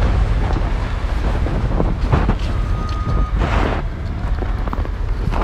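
Wind in a snowstorm buffeting the microphone: a steady low rumble, with a few brief rustling noises around the middle.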